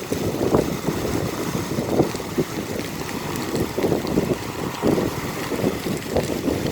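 Rushing water splashing and churning in a steady, rough stream, of the kind a roadside waterfall makes pouring down over the road.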